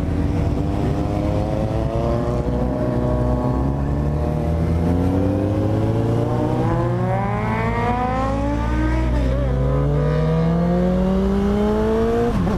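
Four-cylinder motorcycle engine pulling under acceleration, its pitch climbing slowly over several seconds. It dips briefly about nine seconds in, then drops sharply near the end at a gear change before climbing again.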